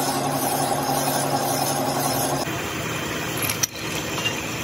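Metalworking machines running steadily: a lathe turning a steel truck axle spindle with an even hum, changing about two and a half seconds in to a drill press boring into a steel hub, with a sharp click near the end.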